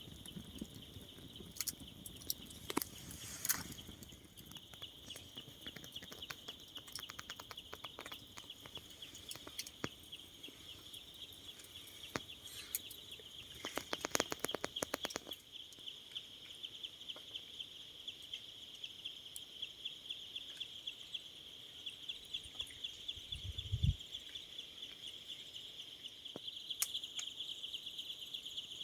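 Night insects chirring in a steady, pulsing high trill, with scattered sharp clicks and crackles, a quick run of them about halfway through, and one low thud near the end.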